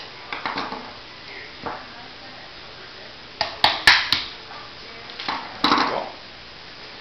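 Clicks and clatter of small plastic and metal airsoft gun parts being handled at the receiver and gearbox. A few light clicks come early, a loud run of sharp clicks comes about halfway through, and another cluster comes near the end.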